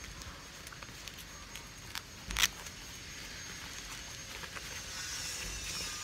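Rustling and crinkling as a padded protective garment with mesh panels is handled and turned over, with small scattered clicks and one short, loud rasp a little over two seconds in.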